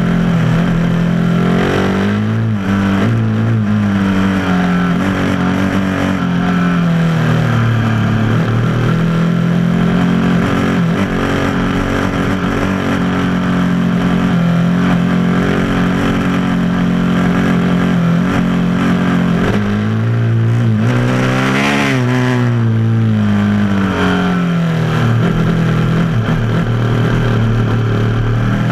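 Motorcycle engine running under way. Its pitch climbs and drops several times as it is throttled up and eased off, and holds steady for a long stretch in the middle. A constant rush of wind and tyre noise runs underneath.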